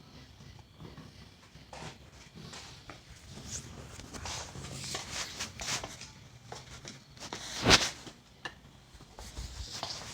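Scattered clicks and rustles of handling and moving about in a small room, with one sharp knock, the loudest sound, about three-quarters of the way through.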